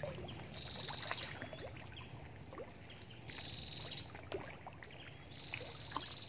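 A high, buzzing call repeated three times, each under a second long and dipping slightly in pitch, over small splashes and ticks of fish taking feed at the surface of a pond.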